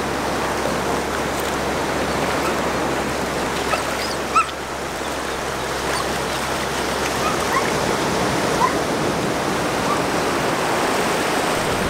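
Shallow surf washing over the sand and around the wader's feet: a steady rushing hiss of water. A few faint short chirps rise above it, the clearest about four seconds in.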